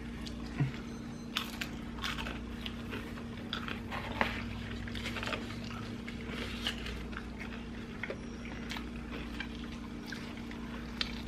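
Close-up eating sounds of two people eating pizza and fried chicken: chewing and biting, with scattered short wet mouth clicks, over a steady low hum.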